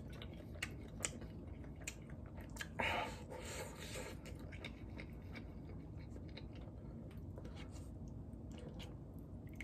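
Close-miked chewing of a mouthful of soft, saucy Korean braised chicken (jjimdak): many small wet clicks and smacks, with a brief louder noise about three seconds in.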